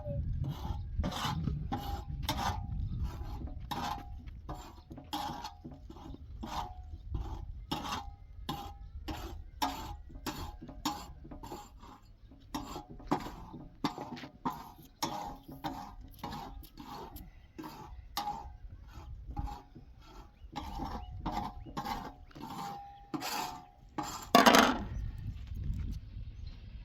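Rhythmic scraping strokes, about two a second, with one louder sharp knock near the end.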